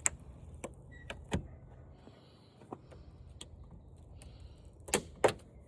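A screwdriver working at a flat-screen TV's parts to break them loose: scattered light clicks and knocks, with two sharper knocks near the end.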